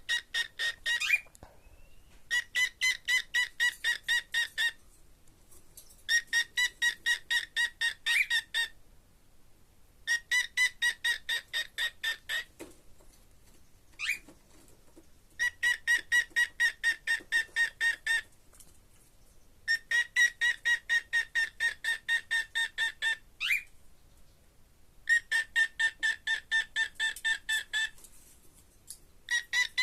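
Cockatiel calling in repeated bursts of rapid, evenly spaced pulsed notes at a steady pitch, about six notes a second, each burst lasting two to three seconds with short pauses between. A few brief rising chirps come in the gaps.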